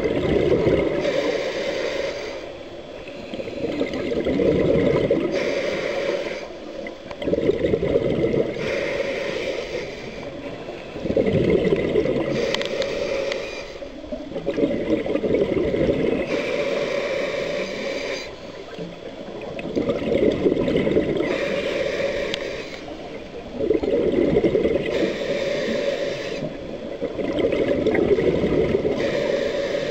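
Scuba diver breathing through a regulator underwater: a hiss on each inhale and a burst of bubbling exhaust on each exhale, repeating about every four seconds.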